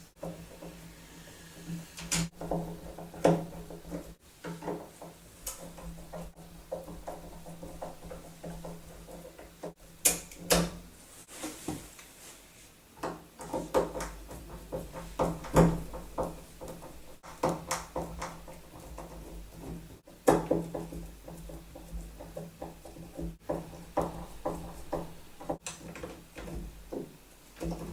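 Phillips screwdriver backing out the screws of a door handle set, with scattered clicks, scrapes and knocks as the handles are worked off the door.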